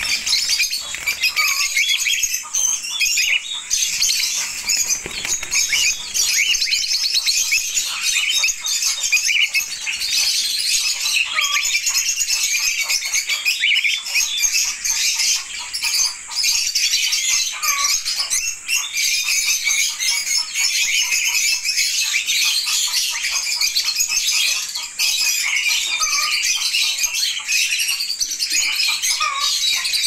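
A flock of small aviary parrots, lovebirds and budgerigars, chirping and chattering continuously in a dense, high-pitched chorus, with a few short, lower squawks scattered through it.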